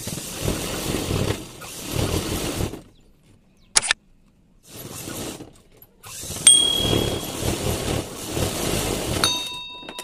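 Sound effects of a like-and-subscribe reminder: several stretches of rushing, whoosh-like noise, a sharp click about four seconds in, and a ringing bell-like chime near the end.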